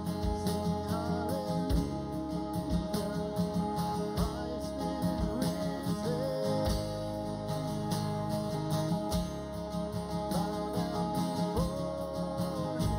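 A live worship band playing a hymn with strummed acoustic guitar and a sung melody, the sound filling a church sanctuary.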